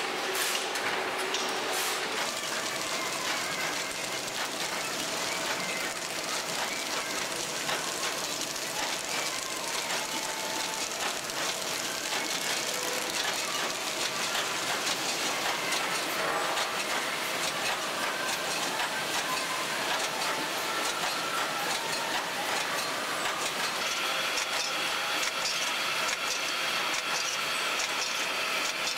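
Packaging-line machinery running: a steady mechanical clatter and hiss from conveyors and handling mechanisms, with many small ticks throughout.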